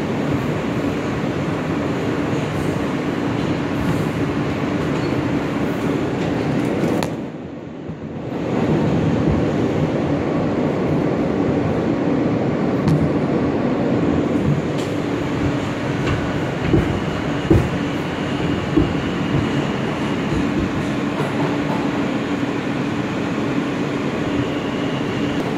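R160A subway car running at speed, heard from inside the car: a steady rumble of wheels on rail under a constant hum. Loudness dips briefly about seven seconds in, and there are a few sharp clacks in the second half.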